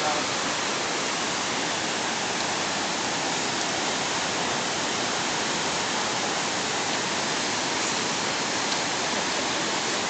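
Steady, even rush of fast-falling, turbulent mountain water, close to the microphone.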